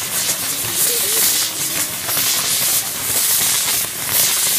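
Burning fireworks wheel on a Mexican castillo: a steady, loud hiss and sputter of its spinning fountains, flickering in strength.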